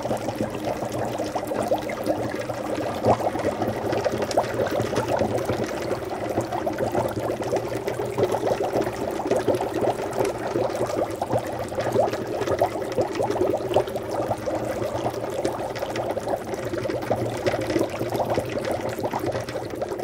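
Water boiling: a dense, steady bubbling made of many small pops.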